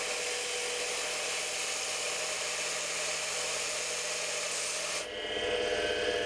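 7x16 mini lathe spinning with a steady hiss as the tool cuts into the resin blank, parting off a bead held by hand. About five seconds in the hiss stops, leaving the lathe's steady motor whine.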